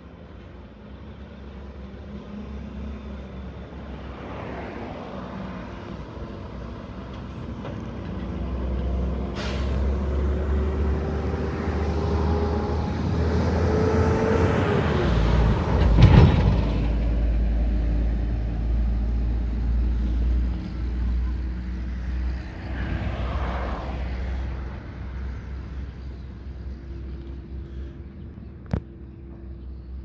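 Heavy diesel trucks running on a street. A dump truck passes close by, its deep engine and tyre rumble building to a peak about halfway through and then fading. A couple of short hissing bursts come a few seconds in and again later.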